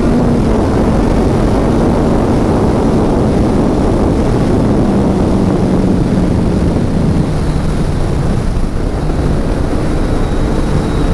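Motorcycle riding at speed: heavy wind rushing over the microphone, with the engine's steady drone underneath, its pitch dropping a little about halfway through.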